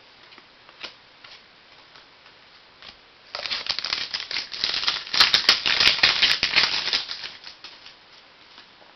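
Plastic wrapper of a trading-card pack being torn open and crinkled, a dense crackle lasting about four seconds in the middle, after a few light handling clicks.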